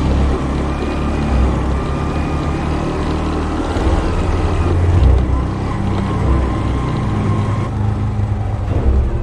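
Motorbike engine running while riding, with wind rumbling on the microphone.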